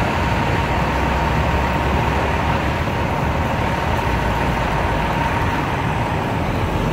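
Steady city traffic noise, a low rumble of passing vehicles, with a faint steady tone above it.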